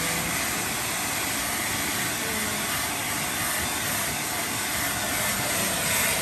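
Hand-held blow dryer running steadily, a constant rush of air over a small dog's wet coat.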